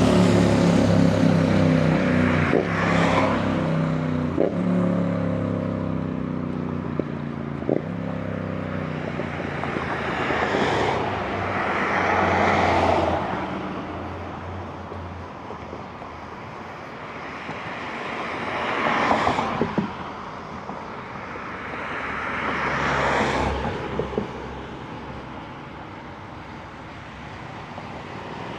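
Road traffic passing by. At the start, a vehicle's engine note drops in pitch as it goes by. Then several cars pass one after another, each a swell of tyre noise that rises and fades.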